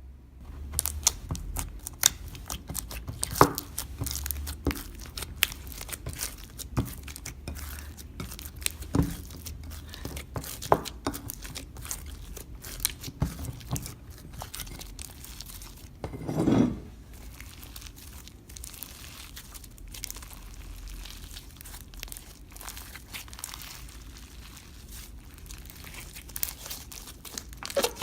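Slime being squished, pressed and stretched by hand, with frequent sharp sticky pops and crackles and one longer, louder squelch a bit past halfway.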